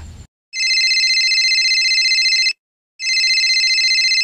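Electronic telephone ring sound effect: two high-pitched rings of about two seconds each, half a second apart.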